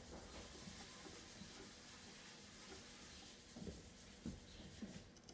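Near silence with faint rubbing and a few light clicks in the second half: a chisel being slid and repositioned in the clamping holder of a sharpening jig.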